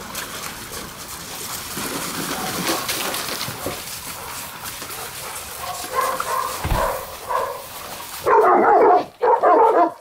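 Dogs wading and splashing in plastic kiddie pools, water sloshing and paws moving about. Near the end a dog barks loudly several times in quick succession.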